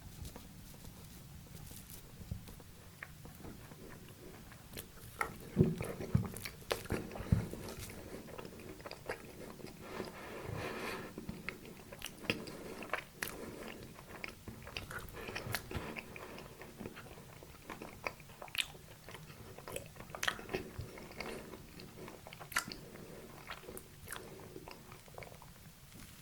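Close-miked eating of a dessert: bites and chewing with many sharp mouth clicks. The first few seconds are quieter; the loudest bites come about five to seven seconds in.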